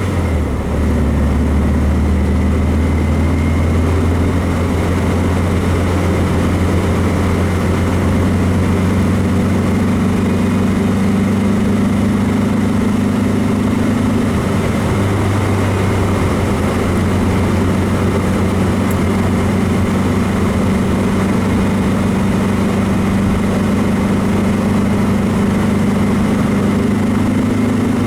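Freshly built 1776 cc air-cooled VW flat-four with stock cam and carburettor, running under way in a 1966 Beetle, heard from inside the cabin. The engine note drops just after the start and rises again about halfway through.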